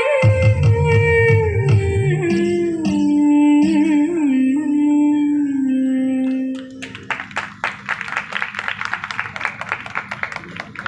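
The closing note of a Thiruvathirakali song, one long sung note sliding down in pitch over a plucked-string accompaniment, ending about six and a half seconds in. Quick, uneven hand clapping follows for the last few seconds.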